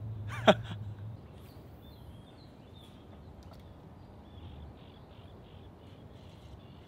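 Quiet outdoor ambience with faint, scattered bird chirps.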